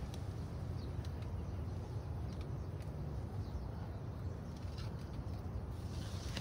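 Faint handling sounds, a few light clicks and rustles, as a plastic fruit-fly pheromone trap is tied to a tree branch among the leaves, over a steady low rumble.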